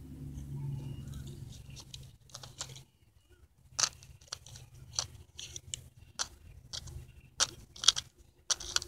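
Handling noise from small plastic toy figures and bead jewelry being moved by hand: scattered light clicks and taps at irregular intervals, over a low rumble that fades out in the first few seconds.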